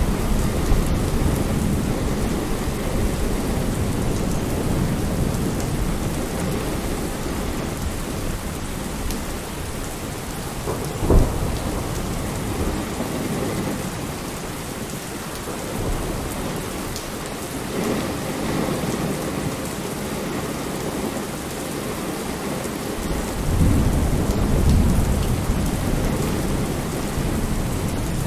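Steady rain with low rolls of thunder swelling and fading, loudest in the last few seconds. A single sharp thump about eleven seconds in.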